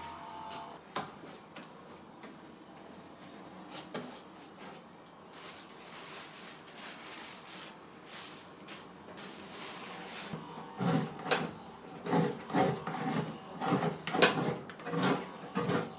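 Old wooden chest being handled: a few light clicks and taps, then from about eleven seconds in a run of irregular wooden knocks, scrapes and creaks.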